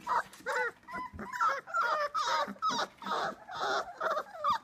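Labrador retriever puppies whining: a quick string of short, high, wavering squeaks, about two or three a second.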